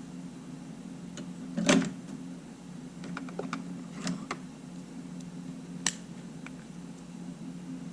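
Small sharp clicks and taps from handling small camera parts at a workbench, a few scattered clicks with the loudest about two seconds in, over a steady low hum.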